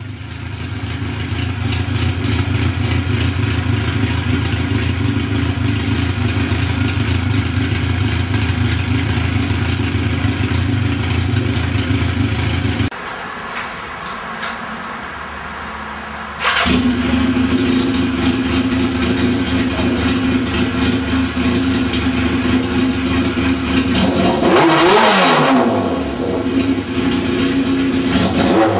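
1981 Yamaha XJ650 Maxim's air-cooled inline-four engine running steadily at idle. Just before halfway its sound drops away for a few seconds and then comes back suddenly, and near the end the engine is revved once, the pitch rising and falling back.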